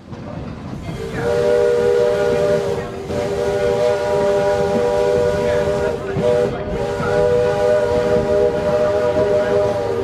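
Steam locomotive whistle blowing a long, chord-like blast of several notes at once, dipping briefly twice, over a steady rushing noise.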